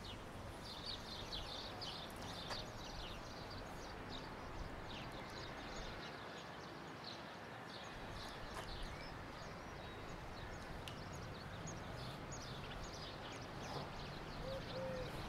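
Faint outdoor ambience: small birds chirping in quick, scattered calls over steady background noise, with a dove cooing a few times near the end.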